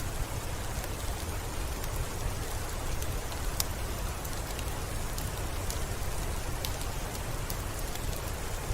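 Steady rain falling, with scattered individual drops ticking sharply over a constant hiss and a low rumble underneath.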